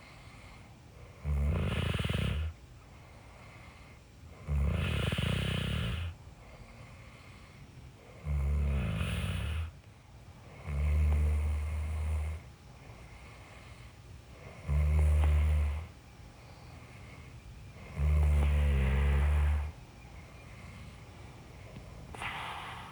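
A person snoring in a steady rhythm, one drawn-out snore on each breath about every three and a half seconds, six in a row, with a shorter, weaker one near the end.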